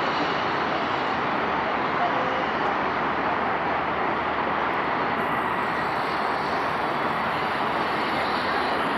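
Steady rushing background noise with an unclear murmur of voices and no distinct events.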